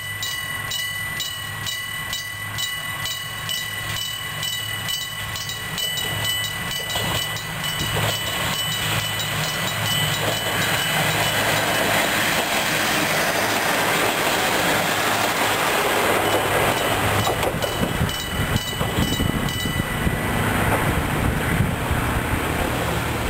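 Electric-bell level-crossing warning ringing with a fast, even run of strokes while a KiHa 200 diesel railcar passes over the crossing, its wheels clattering over the rail joints and its DMH17C diesel engine running. The bell stops about 20 seconds in.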